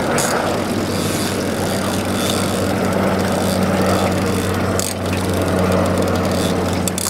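Boat's outboard motor running steadily at low throttle, a steady hum under a hiss.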